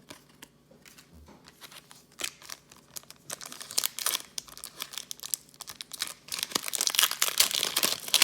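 Plastic wrapper of a 2018 Donruss football card pack being torn open and crinkled: a few light rustles at first, then dense crackling from about three seconds in.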